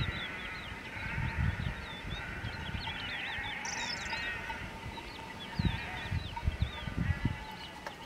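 A large flock of sheep bleating, with many small birds chirping and twittering over it, and a few low thumps past the middle.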